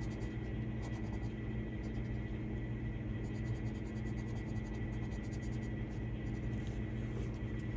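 Colored pencil scratching on paper as it shades, over a steady low drone.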